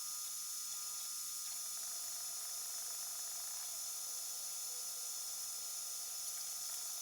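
3D printer running, heard as a steady high hiss with a few faint, constant whining tones.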